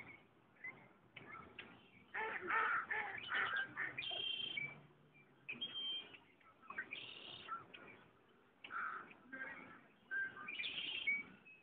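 Several birds calling over a lake in spring: a busy run of overlapping calls about two to five seconds in, then scattered shorter calls and chirps.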